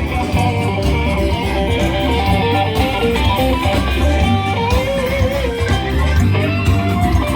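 A band playing live, led by electric guitar over a bass line, with a bent, gliding guitar note about halfway through.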